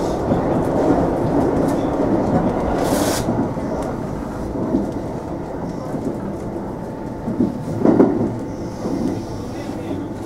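JR West 227 series electric train running on the rails, its steady wheel and track noise heard from inside the front car. A short hiss comes about three seconds in, and a louder thump near eight seconds.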